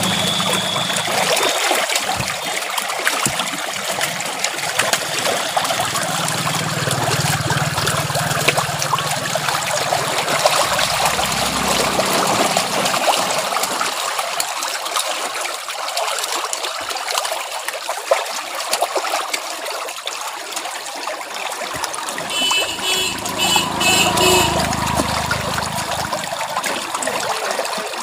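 Water splashing and churning steadily as a dense mass of hybrid magur catfish thrash at the surface of a crowded pond. About four-fifths of the way through there is a short run of high, evenly spaced chirps.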